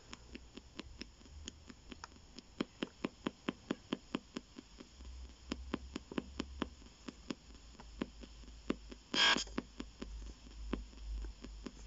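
P-SB7 spirit box scanning the AM band through a small external speaker, clicking about four times a second as it sweeps from station to station at a 250 ms rate. About nine seconds in comes a brief burst of radio sound.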